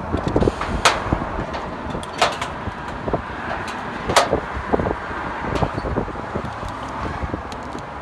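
Footsteps crunching on a gravelled flat roof, a sharp crunch every second or so, over a steady low background rumble.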